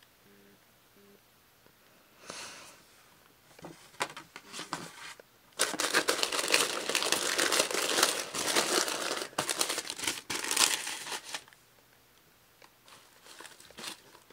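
Crinkling and rustling of packaging being unwrapped by hand, a few short rustles followed by a long, louder stretch of crinkling from about five and a half to eleven and a half seconds in.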